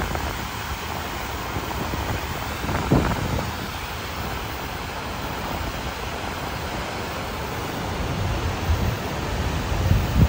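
The Blue Earth River in flood, rushing and churning around the dam in a steady loud torrent. A couple of brief low thumps, about three seconds in and near the end.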